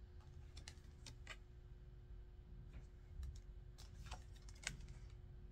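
Faint clicks and light snaps of tarot cards being handled and laid down on a table, in small clusters, over a faint steady hum.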